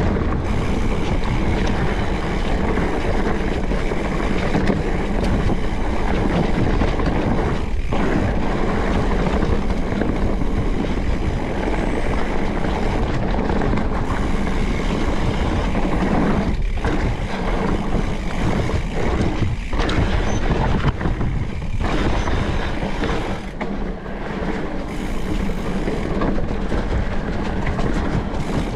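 Specialized Turbo Levo electric mountain bike being ridden along a dirt trail: steady rushing and rolling noise with rattling from the bike. The noise dips briefly a few times around the middle.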